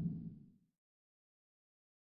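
The tail of a deep, low animal roar fading out within the first half second, followed by dead silence.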